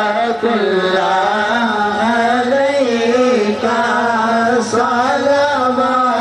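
A voice singing a naat, an Urdu devotional poem in praise of the Prophet, in long, wavering, drawn-out notes.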